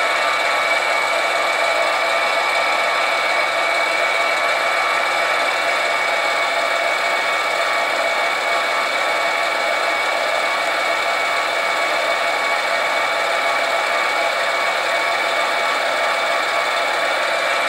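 Mini metal lathe running with a steady whine while its tool turns down the end of a crankshaft under the carriage's fine feed.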